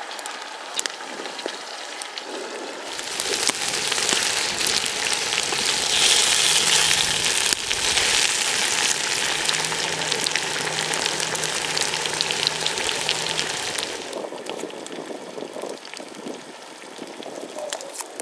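Food frying in a hot pan: a steady sizzling hiss with scattered pops, swelling louder about three seconds in and easing back down a few seconds before the end.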